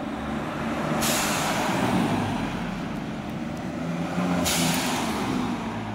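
Toyota Sequoia's i-Force MAX twin-turbo V6 pulling away at low speed. Its Turbosmart Kompact EM dual-port blow-off valves vent boost to the air twice, with a sudden whoosh about a second in and another about four and a half seconds in, each trailing off.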